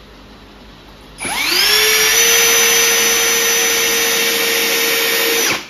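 Cordless drill driving a screw into the corner of a poly hive box. The motor spins up about a second in, runs with a steady whine for about four seconds, and stops just before the end.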